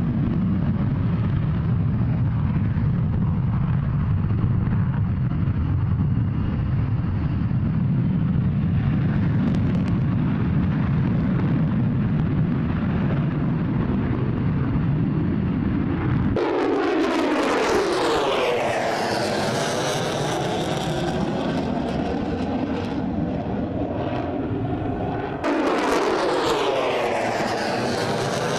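Fighter jet engines: a low steady rumble for about sixteen seconds, then an abrupt change to a jet passing with sweeping, falling tones. Another pass starts suddenly near the end.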